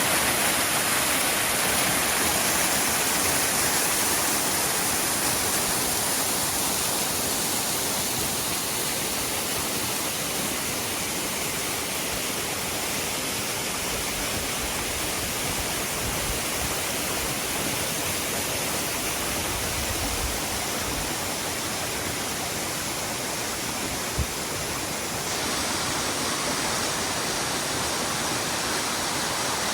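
Waterfall rushing steadily, a continuous roar of falling water; its tone shifts slightly a few seconds before the end.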